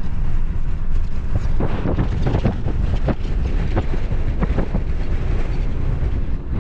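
Strong post-blizzard wind gusting hard against the microphone: a loud rumbling buffet that swells and dips irregularly.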